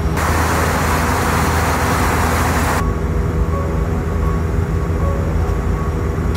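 Airbus A320-200 passenger cabin in cruise: a steady, loud low drone. A hiss sets in just after the start and cuts off sharply a little under three seconds in.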